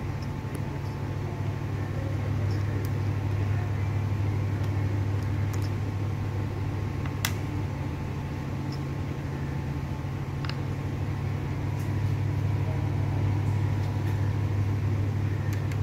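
Steady low machinery hum with a faint steady whine above it, and a few light metallic clicks as the clamp and nuts of a miniature boiler's manhole cover are worked loose.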